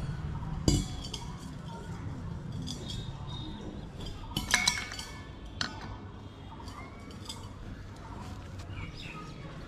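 Sharp metal clinks of an adjustable wrench on the brass valve and hose fitting of a refrigerant gas cylinder. There is one about a second in and a cluster around four and a half to five and a half seconds in, over a steady low hum.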